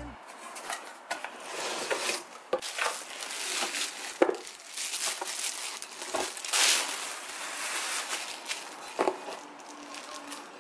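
Plastic wrapping and cardboard packaging being handled and pulled off a boxed pot: rustling and crinkling, with a few sharp knocks.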